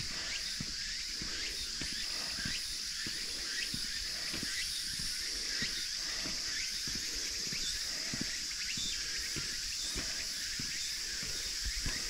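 A steady high-pitched drone of insects, with a hiker's footsteps on the path at a regular walking pace of about two steps a second.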